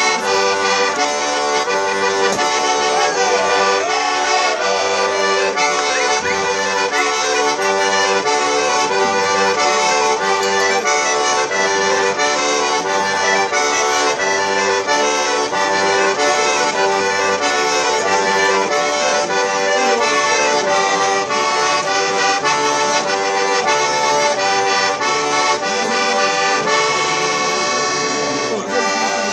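Accordion playing a traditional tune: sustained chords over a regular, alternating bass.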